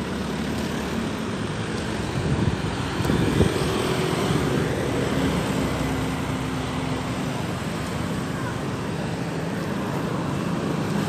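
Roadside traffic: a steady wash of passing cars and engines, with a low engine hum, getting louder for a couple of seconds about two seconds in.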